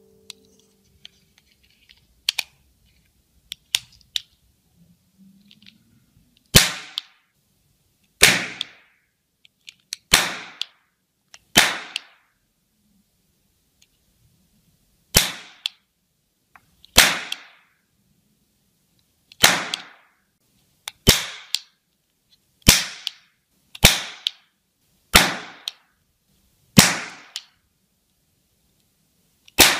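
Toy cap-gun revolver firing plastic eight-shot ring caps: a few light plastic clicks as the cylinder is loaded and closed, then about thirteen sharp cap bangs, one every second or two, with a short pause midway.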